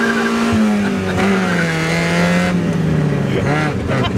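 Miata kart's four-cylinder Mazda Miata engine running under way, its note holding and then dropping in pitch about a second in and again near three and a half seconds.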